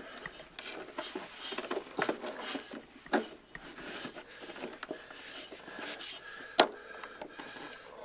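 Parking brake cable end and its metal retaining clip being worked by hand into a bracket: scraping and rubbing with small clicks, and one sharp click about two-thirds of the way through.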